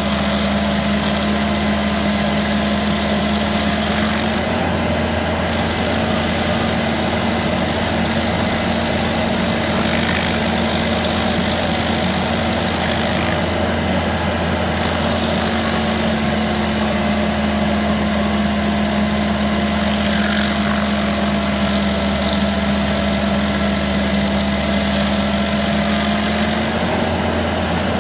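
Rayco RG74 stump grinder running steadily while its cutter wheel grinds into a wooden stump, with a noisy spray of chips over the engine note. The engine's pitch dips slightly about four seconds in and rises back near the end.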